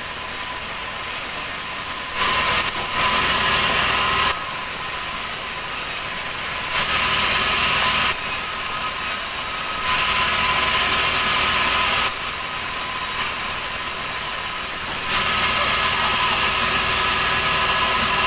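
Large sawmill band saw running steadily while sawing a heavy ulin (Bornean ironwood) log; the noise grows louder and harsher four times and drops back between them, as the blade cuts through the log.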